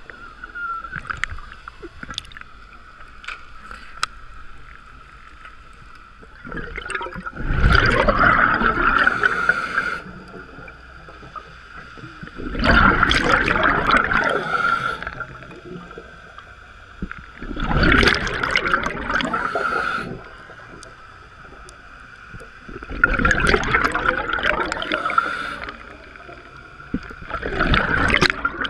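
Scuba diver breathing through a regulator underwater: five loud rushes of exhaled bubbles, each lasting two to three seconds and coming about every five seconds, with quieter stretches between breaths.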